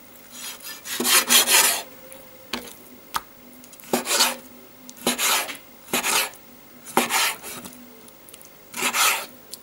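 Kitchen knife slicing raw chicken breast into small pieces on a wooden cutting board: about seven short cutting strokes through the meat and against the board, roughly one a second.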